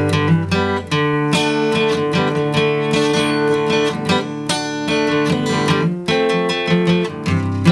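Solo acoustic guitar playing an instrumental, chords strummed in a steady rhythm, with the bass notes changing about a second in and again near the end.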